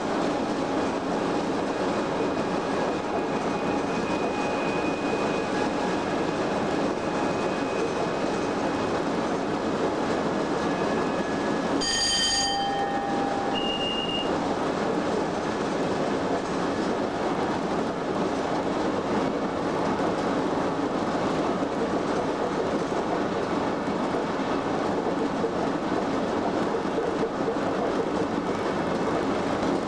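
Steady running noise inside the cab of a Class 87 electric locomotive (87033) travelling along the line: wheel, rail and motor noise. About twelve seconds in there is a single short bell-like ding, followed shortly by a brief high beep.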